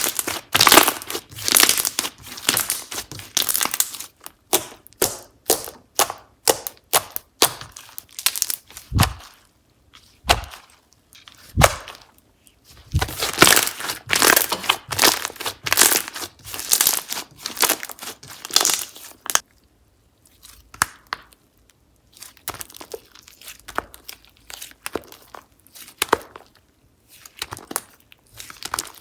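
Slime being squished, pressed and stretched by hand, giving bursts of rapid crackling and popping clicks with short pauses between, and a few soft low thuds near the middle.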